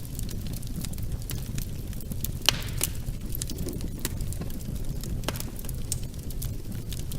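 Wood fire burning in a fireplace: a steady low rumble of the flames with scattered crackles, and one louder pop about two and a half seconds in.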